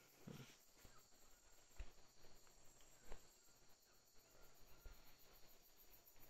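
Faint insect chorus: a steady high buzzing and a fast, even, very high pulsing trill, with a few soft knocks.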